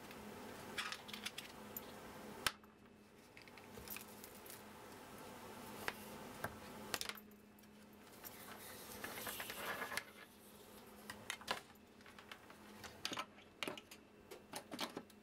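Handling noise from a power cable and its small plug being laid out on a wooden workbench: scattered light clicks, rattles and rustles, with one sharp click about two and a half seconds in and a longer rustle near the middle. A faint steady hum runs underneath.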